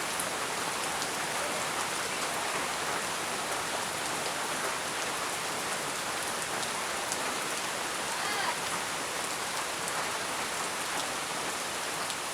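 Heavy rain falling steadily: a dense, even hiss with scattered sharp drop ticks.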